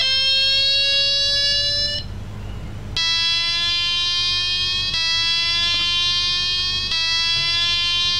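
A wall clock's electronic melody box playing its chime tune through a small makeshift speaker, triggered by joining its two trigger wires: long electronic notes, each held about two seconds, with a short break about two seconds in. It plays on the substitute speaker, so the box itself works and the fault was its broken original speaker.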